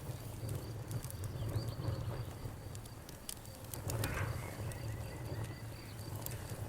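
Campfire burning, the wood crackling with scattered sharp pops over a low steady rumble.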